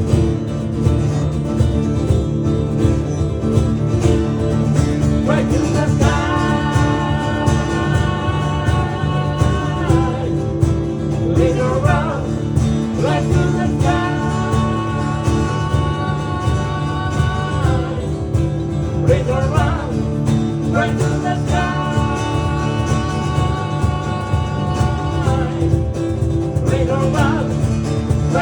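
A band playing an instrumental passage of a song over guitar accompaniment. A lead line holds three long notes, each one slid into.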